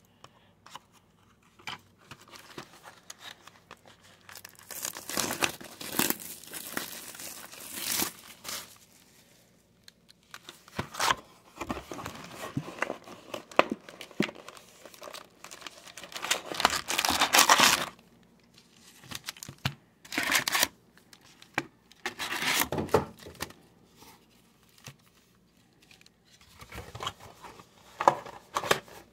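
Tearing and crinkling of packaging as a hobby box of O-Pee-Chee hockey cards is opened and its foil packs handled, in several bursts; the longest and loudest comes a bit over halfway through.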